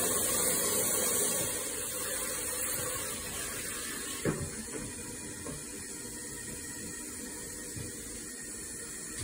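Hand-held shower head spraying water into a plastic bucket to fill it, a steady hiss that dies away about two seconds in when the water is shut off. A sharp knock about four seconds in, then faint sounds of a hand moving in the bucket water.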